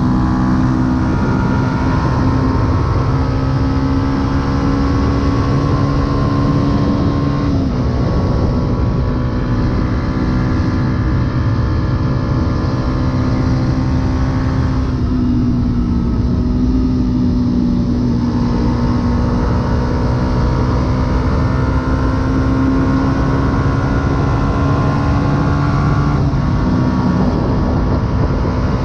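2008 Yamaha YZF-R125's 125 cc single-cylinder four-stroke engine with an aftermarket full exhaust, running under way at steady cruising revs over wind rumble. The engine note drops suddenly about a quarter of the way in and again near the end, as it is shifted up, and dips briefly around the middle.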